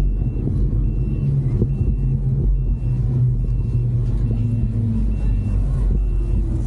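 Steady low rumble of a motor vehicle, with a faint high-pitched beep repeating a little more than once a second.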